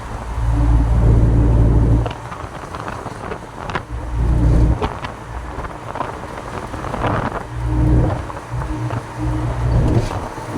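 Truck driving on the road: steady engine and road noise, with low rumbling that swells several times.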